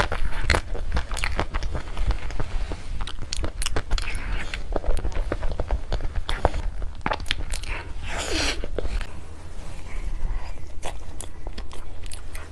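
Close-up eating of chocolate desserts: a run of sharp bites and chewing clicks, with a longer swishing noise about eight seconds in.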